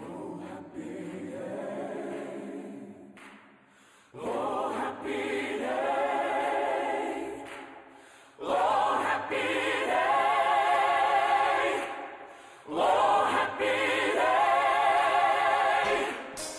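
Gospel choir singing as a music soundtrack, in four long held phrases of about four seconds each; the first is softer, the other three louder.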